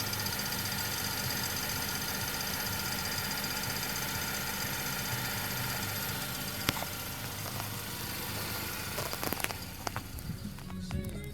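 Ford Focus Mk3 running with its air-conditioning compressor on: a steady hum with a thin whine over it, the noise the owner suspects is abnormal from the compressor. There is a sharp click about two-thirds of the way through and a few more clicks near the end as the hum becomes lighter and uneven.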